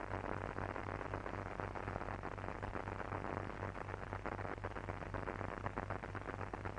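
Background hiss and crackle of a worn film soundtrack, with a low pulsing hum underneath; no dialogue or music.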